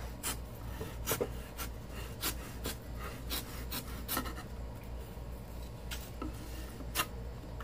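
A kitchen knife drawn along the fold of a sheet of paper, slitting it apart: a run of irregular short, scratchy paper-slicing and rustling strokes.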